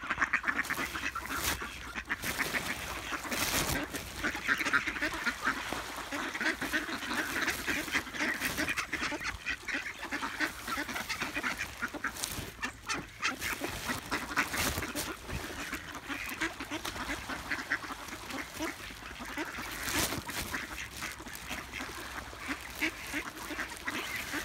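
A flock of mallards quacking continuously, many calls overlapping, as they crowd in for food.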